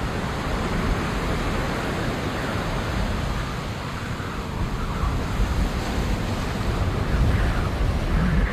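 Wind buffeting an outdoor microphone: a steady rushing hiss with uneven low rumbling gusts.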